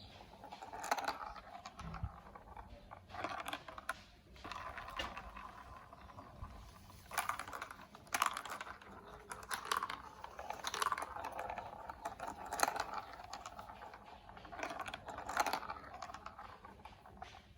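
Plastic marble run building blocks clicking and rattling in irregular clusters, a burst every second or two.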